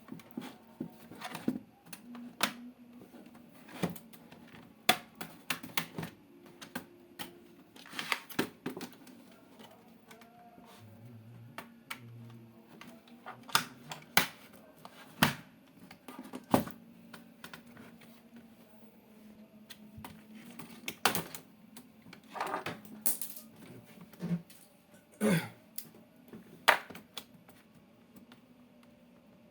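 Plastic bottom case of an ASUS VivoBook X505Z laptop being pried open by hand: irregular sharp plastic clicks and snaps with handling knocks, a few much louder than the rest.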